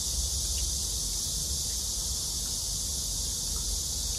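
Steady, high-pitched chorus of insects, even and unbroken, over a low steady rumble.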